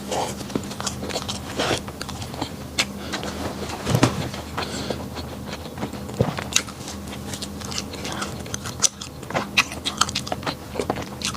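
A person biting and chewing bread close to the microphone, with irregular sharp crunchy clicks, over a faint steady low hum.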